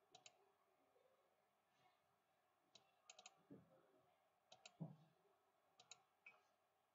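Faint computer mouse button clicks, mostly in quick pairs like double-clicks, in about four bursts, with two soft low thumps near the middle.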